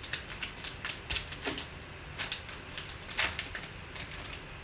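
Foil trading-card pack crinkling and tearing as it is pulled open by hand: irregular crackles, with the loudest about three seconds in.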